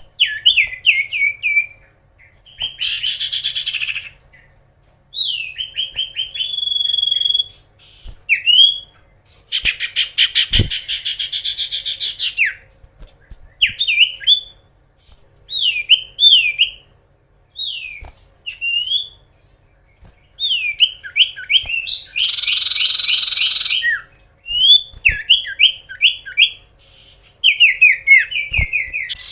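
Common iora singing: quick series of sharply down-slurred whistled notes, broken by several longer buzzy, rattling trills.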